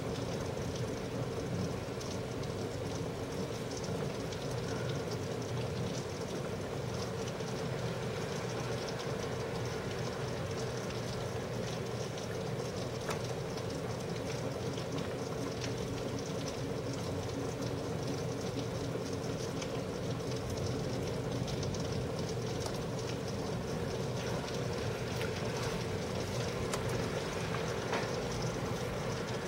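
Steady rain falling during a thunderstorm, an even wash of noise with faint scattered drop ticks, over a constant low hum.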